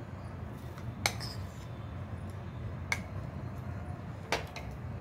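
A metal spoon clinking against ceramic bowls as flour is spooned and tapped out into a mixing bowl: three short clinks a second or two apart, over a low steady hum.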